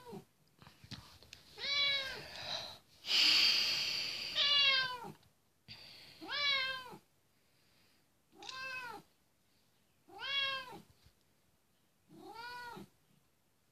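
Domestic cat meowing over and over: about six separate drawn-out meows, each rising then falling in pitch, roughly one every two seconds, with a burst of hiss-like noise about three seconds in.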